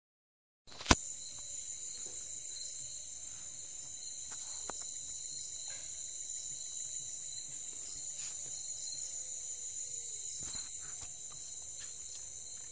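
Night insects chirring in a steady high-pitched drone, cutting in abruptly with a sharp click about a second in.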